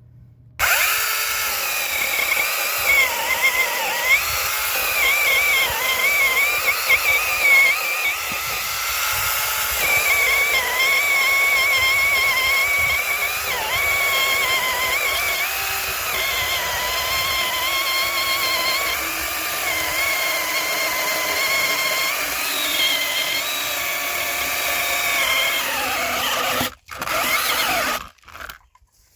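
Small battery-powered handheld electric chainsaw cutting wood, its electric motor whining with a pitch that wavers and dips as the chain bites. It stops suddenly near the end, then runs again briefly.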